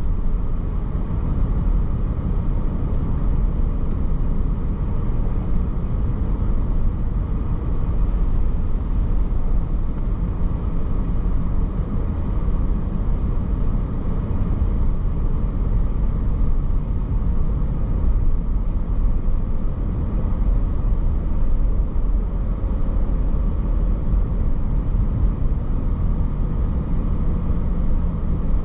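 Steady road and engine noise of a car driving at moderate speed, a constant low rumble of tyres and motor heard from inside the cabin.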